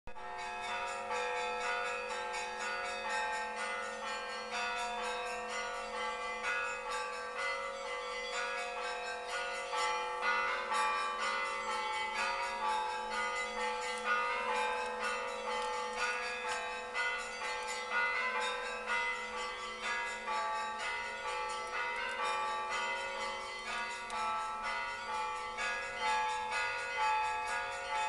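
Russian Orthodox church bells rung by hand by a bell ringer in the belfry: a rapid, continuous pattern of strikes on small high bells over the steady hum of larger bells.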